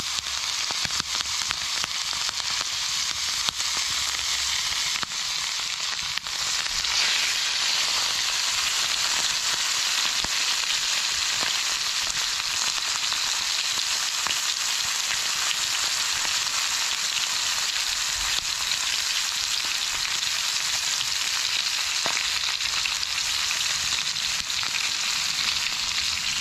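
Seasoned pheasant frying in a cast-iron pan over an open fire: a steady sizzle with fine spattering crackles, growing a little louder about six seconds in.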